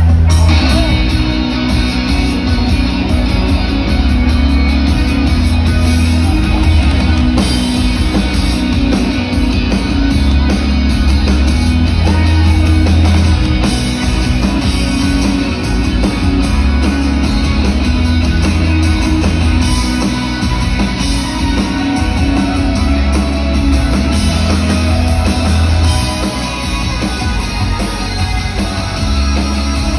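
Rock band playing live through a large concert PA, electric guitars over bass and drums, loud with a booming low end, heard from among the audience.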